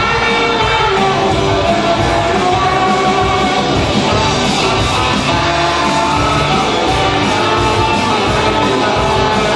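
Live rock band playing, with guitar and a singing voice over a steady loud mix.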